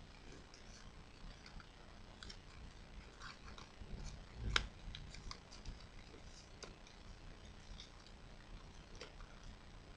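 Faint crinkling and clicking of origami paper as it is folded and creased by hand, at irregular moments, with one louder knock about halfway through.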